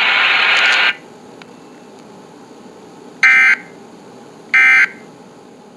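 Emergency Alert System SAME digital data bursts: two short, identical warbling data chirps a little over a second apart, the end-of-message code that closes an alert. They are preceded by a loud rush of radio noise that cuts off about a second in.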